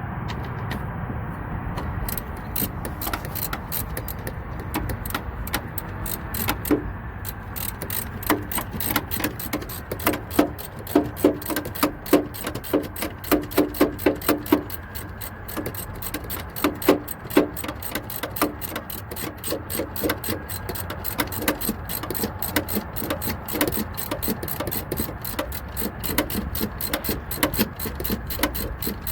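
Ratchet wrench clicking in quick runs while the mounting bolts of an A/C receiver-drier are tightened, with scattered metal tool clicks. The clicking is densest in the middle, over a steady low rumble.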